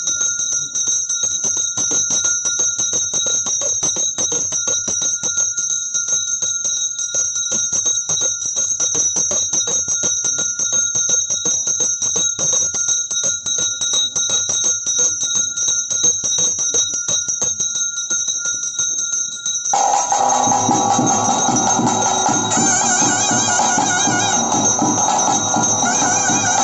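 A hand bell rung rapidly and without pause, its high ringing tones held steady under the fast strokes: the worship bell of the lamp offering. About twenty seconds in, louder traditional drums and band music join in.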